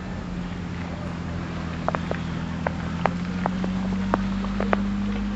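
A steady low mechanical hum that rises slightly in pitch, joined from about two seconds in by irregular sharp ticks.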